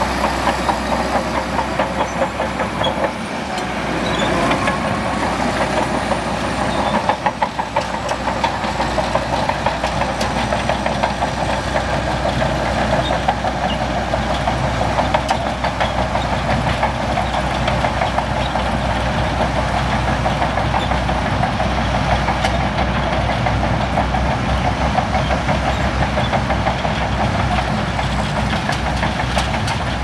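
Shantui DH17C2 bulldozer's diesel engine running steadily with a rapid, even clatter. The engine note rises briefly about four seconds in, and a few sharper knocks come about seven seconds in.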